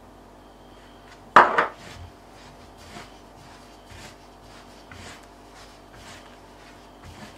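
Gloved hand mixing dry flour in a wooden bowl: soft brushing and rubbing strokes about once a second. A single sharp knock, the loudest sound, comes about a second and a half in.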